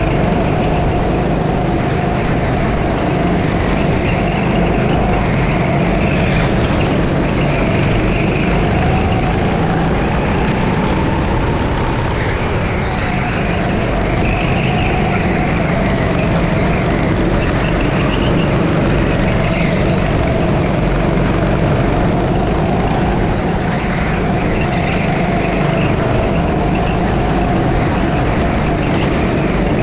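6.5 hp kart engine at race pace, heard close up from onboard. Its pitch rises and falls continuously as the throttle is worked around the lap.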